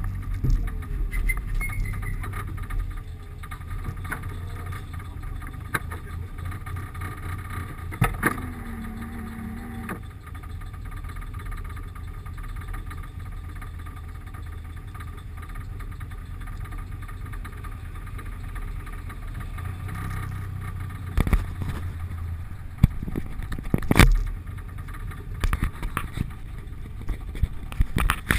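Car driving, recorded by a GoPro HD HERO2 inside its closed waterproof housing: a muffled low engine and road rumble that falls off over the first few seconds, with a few sharp knocks, the loudest near the end.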